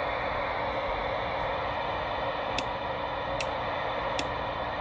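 Steady receive static from a CB radio's speaker, a hiss passed through the linear amplifier's receive preamp. Faint sharp ticks come in about every 0.8 seconds from halfway through.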